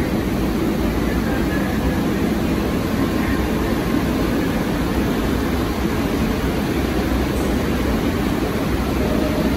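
Steady low rumble and hum of a Bombardier R62A subway train standing at an underground platform.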